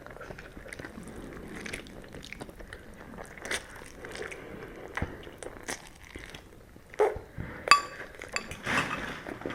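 Noodles being eaten close to the microphone: small chewing and mouth sounds, with two sharper clinks of a utensil against a bowl about seven and eight seconds in, the second briefly ringing.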